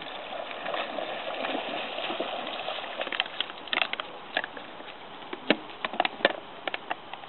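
A dog swimming and splashing through river water, then a scatter of sharp clicks and crackles as it comes out onto the bank carrying a plastic bottle in its mouth.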